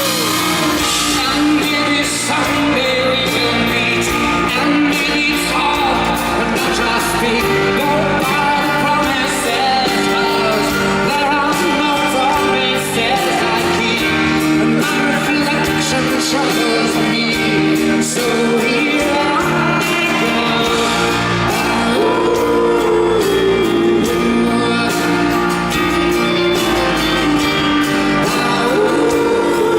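Live pop-rock band performance with guitars and drums, and a voice singing a slow melody over the band.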